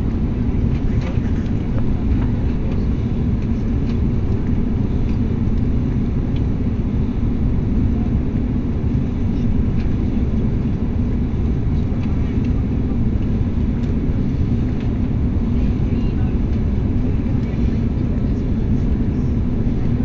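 Steady low rumble of engine and airflow noise inside a jet airliner's cabin as it descends on approach to land.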